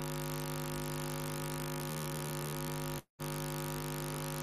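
Steady electrical mains hum, a low buzz with several steady overtones. The audio drops out completely for a moment about three seconds in.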